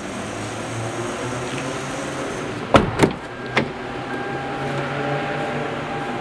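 Steady indoor hum, then two sharp knocks close together about three seconds in and a softer knock half a second later.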